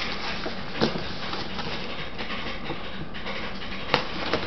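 Washing machine running steadily, a constant noise, with two brief knocks, one about a second in and one near the end.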